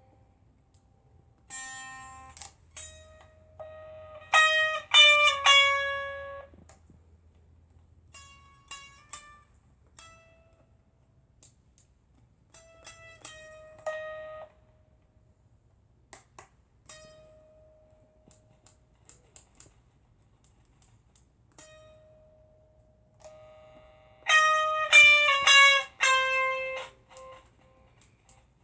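A 1962 Fender Duo Sonic electric guitar fitted with a single string, played through a small battery-powered amp. Plucked notes slide down in pitch in two quick runs, one near the start and one near the end, with a few single notes and scattered small clicks between them.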